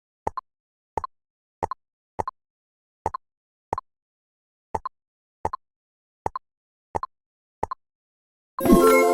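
Digital jigsaw puzzle game sound effects: a short plop as each piece snaps into place, eleven times at an uneven pace, then a bright ringing chime starting about half a second before the end.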